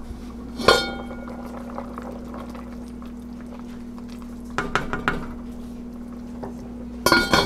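Enamelled pot lid clanking with a short ring as it is lifted off, a spoon knocking against the pot a few times during stirring, and the lid clattering back onto the pot near the end.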